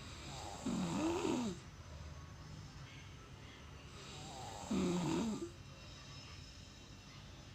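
A sleeping pet snoring: two loud snores about four seconds apart, each lasting about a second, with a wavering pitch.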